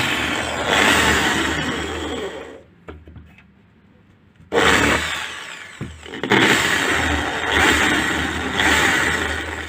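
Corded electric hand drill running with its bit boring a pilot hole into an 18 mm wooden board, in two runs: about three seconds, a pause of about two seconds, then about five seconds that trail off near the end.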